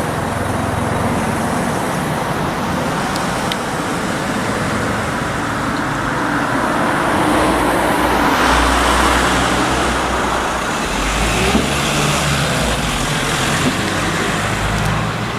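Road traffic noise, swelling as a vehicle passes about eight seconds in.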